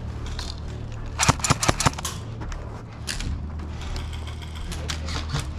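APS Phantom Extremis Mark VI airsoft rifle firing a quick burst of about five shots about a second in, followed later by a couple of softer single shots.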